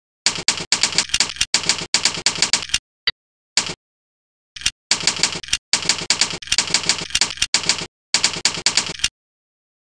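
Typewriter-style keystroke sound effects played by keyboard-sound software as keys are typed: quick runs of sharp clacks, several a second, broken by pauses of dead silence, with a few single strokes about three seconds in.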